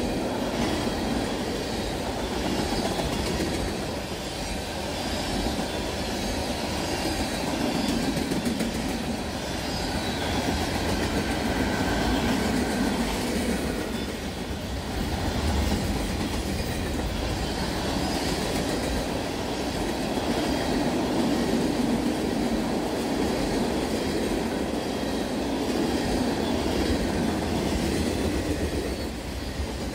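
Freight train of tank cars, boxcars and autorack cars rolling steadily past about ten feet away: continuous noise of steel wheels on the rails and rattling cars, swelling and easing a little every several seconds.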